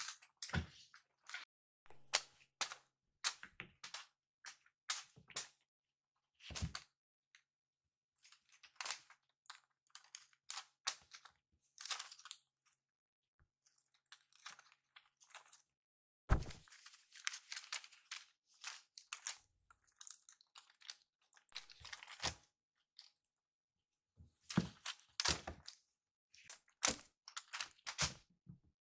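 Kitten playing with a cat-teaser wand on carpet: irregular taps, knocks and crackles from its paws, teeth and the plastic rod and feathery toy, coming in flurries with short pauses, and a louder thump about halfway through.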